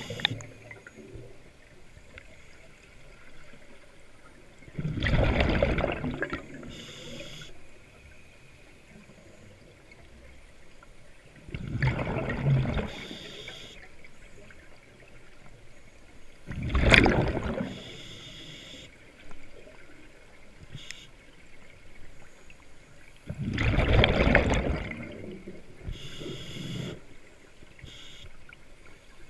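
A scuba diver's regulator underwater: four loud bursts of exhaled bubbles, roughly six seconds apart, with shorter hissing sounds between them.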